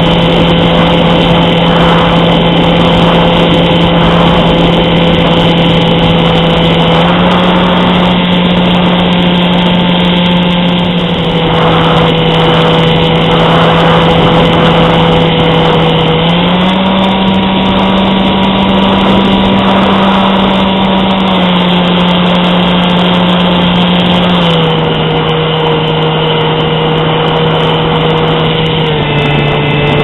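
Bixler RC plane's electric motor and pusher propeller heard from the onboard camera: a loud, steady buzzing drone over a rush of wind noise. The pitch steps up and down several times as the throttle changes.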